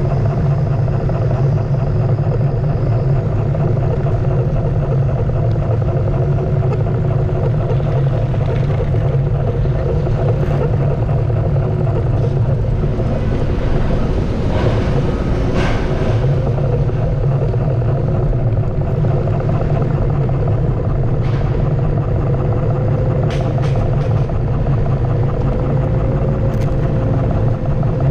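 Onewheel electric board rolling along city asphalt: a steady low rumble from the tyre and road, with the hub motor's whine drifting slowly in pitch as the speed changes. The rumble dips briefly about halfway through.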